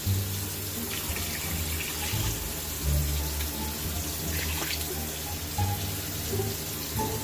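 Water running steadily from a kitchen tap, with some low handling rumble.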